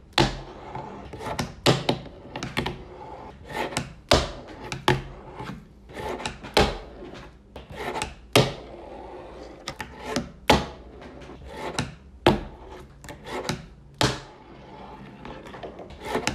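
A fingerboard with trucks fitted, worked by fingers on a wooden tabletop: wheels rolling on the wood, broken by a sharp clack roughly every second as the board is popped and lands. The deck is heavier and flexier than a normal fingerboard and bounces a little as it lands.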